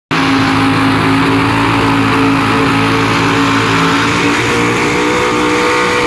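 Drag race car doing a burnout: its engine is held at steady high revs over the noise of the spinning rear tyres.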